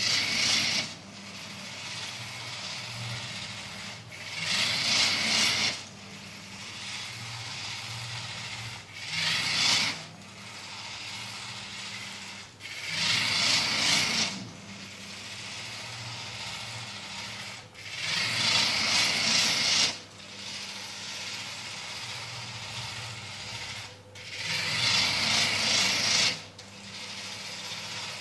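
Small geared DC drive motors of a block-built robot running as it is driven forward and backward by remote control. Six louder bursts of gear noise, each lasting one to two seconds and coming about every four to five seconds, rise over a steady low hum.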